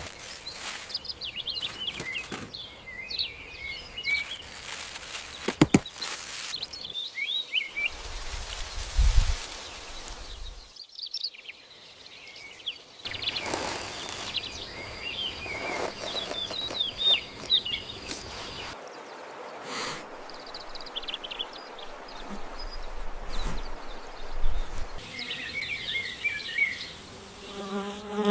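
Birds chirping in repeated short clusters of high calls, with scattered sharp clicks and knocks.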